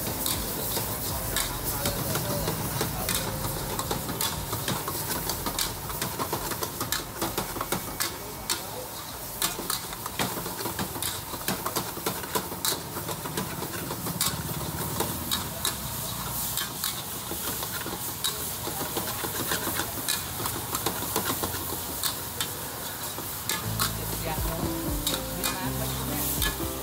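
Metal spatula scraping and clanking against a steel wok in quick, irregular strokes while food is stir-fried over high heat, over a steady sizzle of frying.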